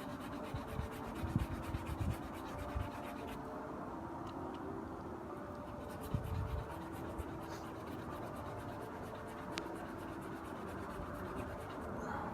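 Cleaning brush scrubbing a sneaker: a steady scratchy rubbing, with a few soft knocks.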